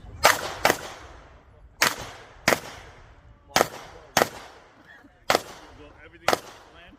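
Pistol shots fired rapidly in a practical-shooting course of fire: eight sharp reports, mostly in pairs about half a second apart, each with a short echoing tail.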